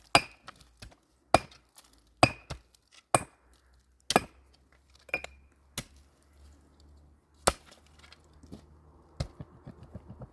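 Repeated sharp blows of a metal tool striking wood, each with a short metallic ring, about one a second at first and then further apart. Near the end comes a quick run of light taps.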